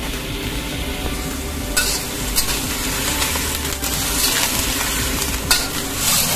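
Cauliflower florets and garlic sizzling in hot oil in a hammered wok, stirred with a metal spatula that scrapes and clicks against the pan, with several sharp scrapes standing out through the stir-fry.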